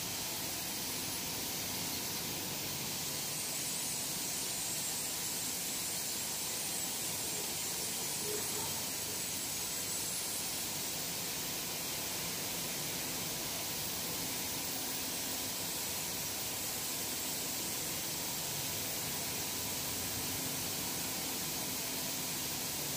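Steady machine noise of a biscuit production line running: an even hiss with a faint steady hum from its conveyors and gear motors.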